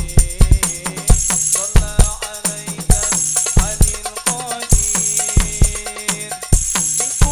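Hadroh ensemble of rebana frame drums playing a brisk, steady rhythm of deep and sharp hand strikes with bright tambourine jingles, with a melody line running over it.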